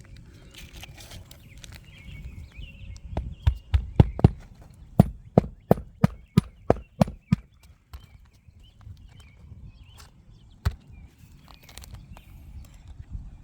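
A quick, even run of about fifteen sharp knocks on an asphalt shingle roof, roughly three a second, then one more knock near the end.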